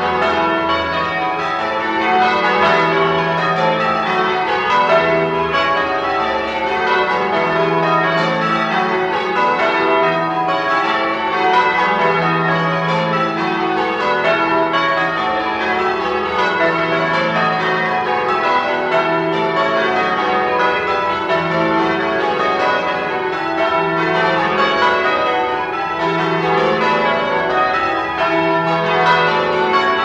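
Church bells of St. Nicholas' Church ringing in a continuous peal, many overlapping strikes with the deepest bell sounding again every few seconds.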